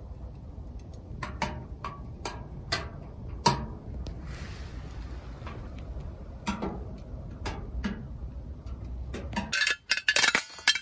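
Wood pellet stove burning with a low steady rumble and scattered sharp ticks. Near the end, a quick run of loud metal clinks as the stainless steel combustor is handled.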